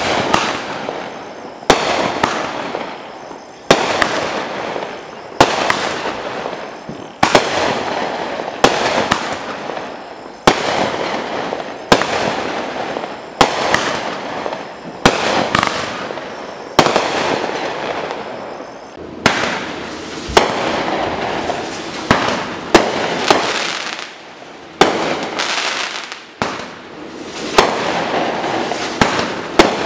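Consumer aerial firework cakes firing shot after shot, a sharp bang about every one and a half to two seconds, each trailing off in a fading rumble. The Mad Ox Red Peony Finale Box fires red peony bursts, and the Rodeo cake takes over about two-thirds of the way in.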